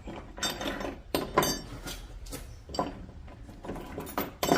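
Metal clanking and clinking as steel exhaust headers and their bolts are handled and fitted against an engine: a run of sharp knocks, several with a short metallic ring, the loudest near the end.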